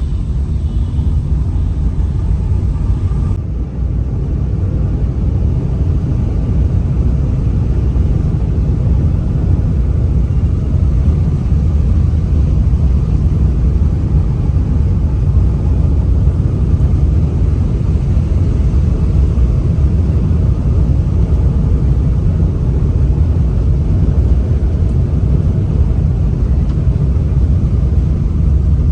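Steady low rumble of a vehicle travelling along a road, engine and road noise together; a higher hiss drops out about three and a half seconds in.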